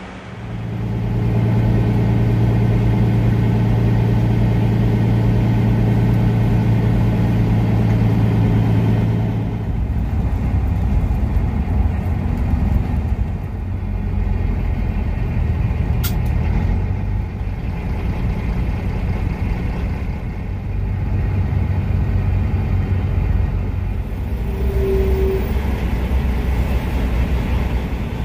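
Kenworth W900 semi-truck driving in traffic: a steady engine drone with road noise. About a third of the way in it changes to a lower, rougher rumble.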